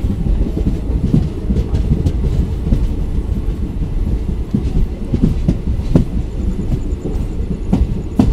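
Running noise of an ICF passenger coach in motion, heard at its open door: a steady low rumble of wheels on track with irregular clickety-clack knocks, and one sharper click about six seconds in.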